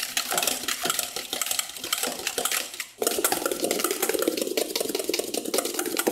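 Wire balloon whisk beating egg whites by hand in a stainless steel bowl: fast, continuous clicking and scraping of the wires against the metal. After a brief break about three seconds in, the whisking goes on duller and less clicky, the whites now whipped to a thick meringue foam.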